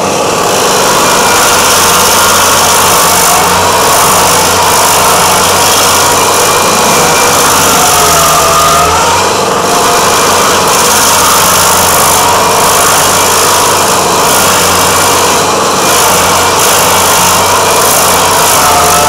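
Vermeer SC502 stump grinder's engine running under load as its cutter wheel grinds into a Moreton Bay fig stump and its roots, with a dense hiss of wood chips and dirt spraying out. The sound is loud and steady, easing briefly a couple of times.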